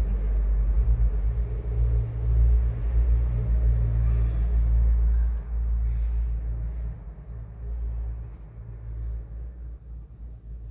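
A loud, uneven low rumble that dies away over the last few seconds.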